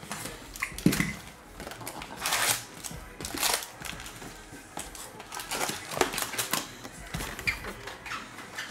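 Foil-wrapped hockey card packs crinkling and clacking together as they are pulled out of an opened cardboard hobby box and stacked, with irregular rustles and clicks. The box's cardboard tear strip rips near the start.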